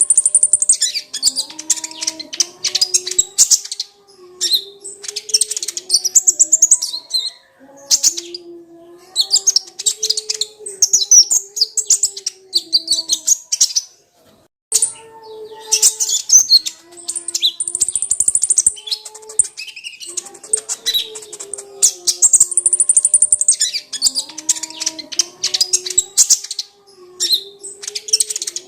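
A kolibri ninja sunbird singing a fast, high twittering song in repeated phrases of two to three seconds, with short pauses between them. A fainter, wavering lower tone runs under each phrase.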